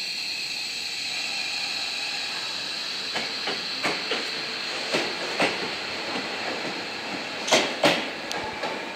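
Seibu 40000 series electric multiple-unit train pulling out of a station, with a steady high hiss and a few steady tones. From about three seconds in, wheels clack over rail joints, the clacks coming closer together as the train gathers speed. The two loudest clacks come near the end as the last car passes.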